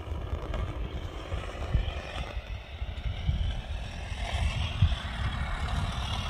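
Single-cylinder two-stroke OS GT33 petrol engine of a radio-controlled Extra 330 running in flight, its drone gliding gently in pitch and growing louder toward the end as the plane comes in low. A heavy, uneven low rumble of wind on the microphone runs under it.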